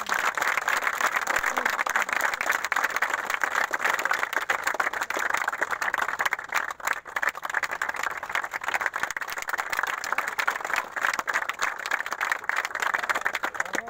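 A group of people applauding: many hands clapping together in a dense, steady patter that stops abruptly.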